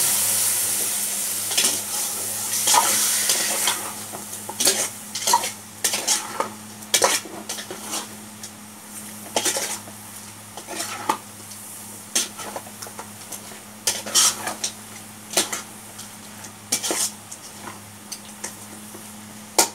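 Raw chicken pieces sizzling in hot oil in an aluminium pot, the sizzle loud at first and fading over the first few seconds. Then a metal ladle scrapes and knocks irregularly against the pot as the chicken is stirred.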